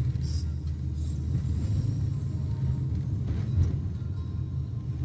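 Steady low rumble of a vehicle in motion, engine and road noise heard from inside the cabin.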